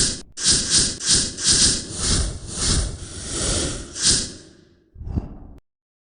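Video-intro sound effect: a run of noisy swishing surges, about two a second, fading out over the last second, then one short swish before it cuts off.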